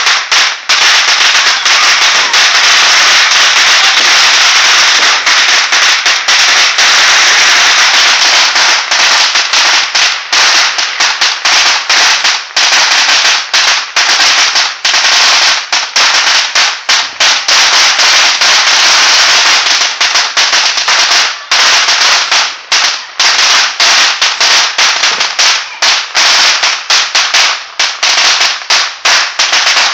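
Firecrackers going off in a loud, dense crackle, the bangs running together. From about ten seconds in it breaks up into rapid separate cracks with short gaps.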